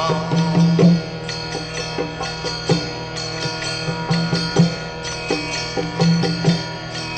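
Instrumental devotional music with no voice: a steady sustained drone under repeated sharp note attacks and light percussion.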